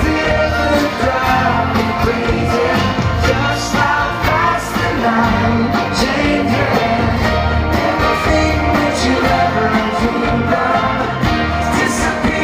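Live band playing a slow pop ballad, with singing.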